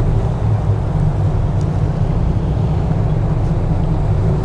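Twin diesel engines of a Sunseeker 76 motor yacht running with a steady low drone, one engine in ahead and the other in astern, spinning the boat in place.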